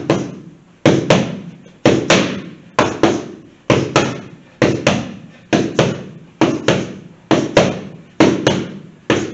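Boxing gloves smacking into punch mitts in quick left hook–right hook pairs: two sharp smacks a split second apart, repeating about once a second, around ten pairs in all, each with a short echo.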